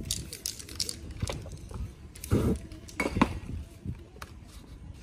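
Spray-paint artist at work: a few short hisses from an aerosol spray can in the first second, then several separate knocks and clinks as cans and paper are handled.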